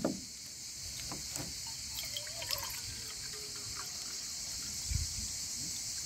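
Water poured from a plastic bottle into a stainless steel mug, trickling as the cup fills, over a steady high hiss of insects.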